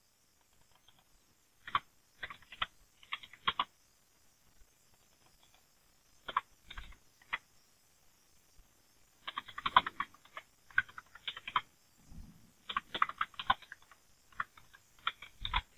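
Computer keyboard typing in five short bursts of rapid keystrokes with pauses between, as short terminal commands are typed and entered.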